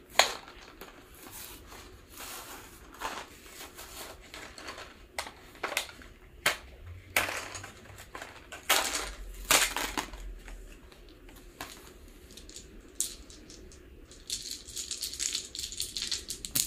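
Plastic packaging of a dice set being worked open by hand: irregular crackles and sharp clicks. Near the end comes a dense run of small clicks as loose plastic dice are handled.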